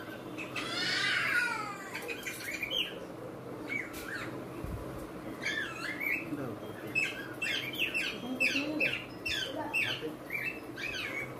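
Birds calling: a run of short squawks and chirps that swoop up and down in pitch, one about a second in, then coming thick and fast through the second half.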